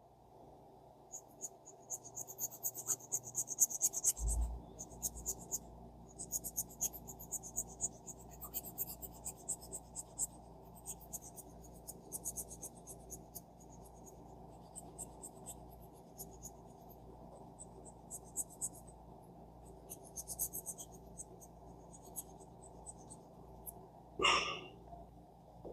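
Small half-round hand file rasping in runs of short, quick strokes, with pauses between runs, easing a part of a Daiwa 1600C spinning reel that binds too tightly. A faint steady hum sits under it.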